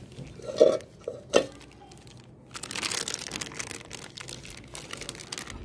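Two soft knocks, then thin polythene sheet crinkling and rustling from about halfway through as hands press and smooth it over a round of potato papad dough.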